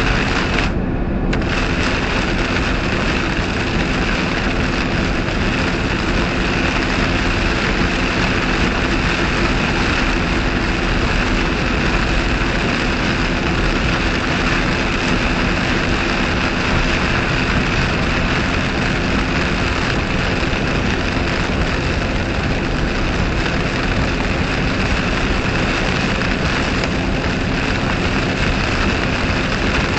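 Steady road noise inside a car driving at highway speed through heavy rain: tyres hissing on the wet pavement, rain and wind against the car, and a low engine hum.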